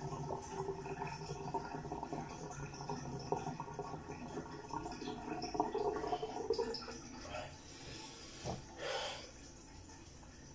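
Tap water running into a sink in a small tiled bathroom, steady for about seven seconds and then fading, followed by two short breaths or sniffs near the end.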